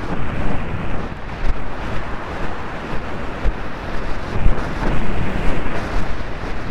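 Heavy wind buffeting the microphone of a helmet camera on a galloping horse, a rushing noise that swells and fades.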